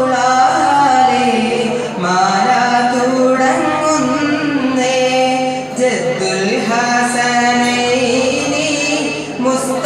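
A solo male voice sings a malappattu, a Mappila devotional praise song, in long held notes with pitch turns between them.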